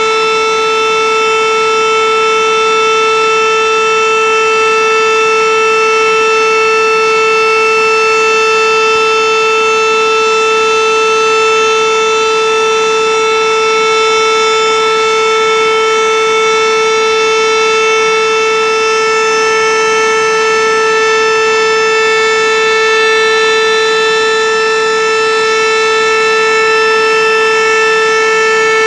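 Siren sounding one loud, steady, unbroken tone that neither rises nor falls.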